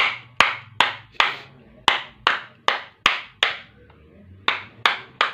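Repeated sharp knocks, about twelve in all at roughly three a second with a short pause midway, as the new field coil is tapped down to seat it fully in the angle grinder's housing.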